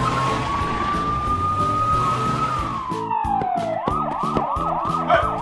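Police car siren: one slow wail rises and then sinks, and near the end it switches to a fast yelp of about three cycles a second. Background music with a steady beat plays under it.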